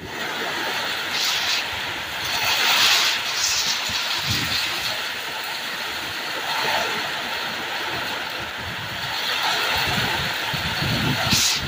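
Heavy thunderstorm rain pouring steadily, with louder surges a few seconds in and again near the end, and some low rumbling toward the end.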